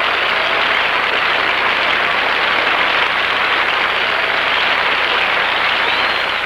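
Audience applauding steadily, easing off at the very end.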